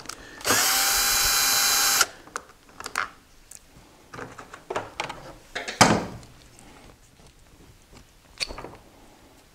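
Cordless drill-driver with a long extension bit running steadily for about a second and a half, spinning a screw out of a motorcycle's plastic fairing panel. Scattered light clicks and knocks of the plastic panel being handled follow, the sharpest a little past the middle.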